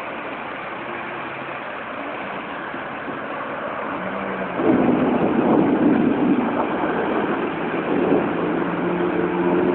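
Steady rain hiss with traffic. A louder rushing swell begins about halfway through, like a vehicle passing on a wet road, and a steady engine hum sets in near the end.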